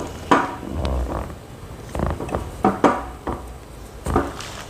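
Irregular knocks and clicks from a teak-wood folding table frame and its stainless-steel locking brackets being handled, as the stiff lower lock is worked into place.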